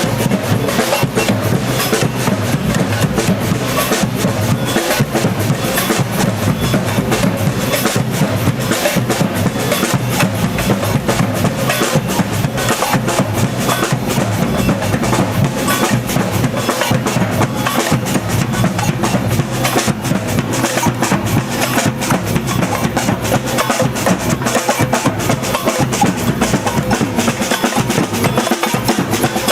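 Samba band drumming: bass drums, snare drums and other percussion playing a dense, unbroken rhythm.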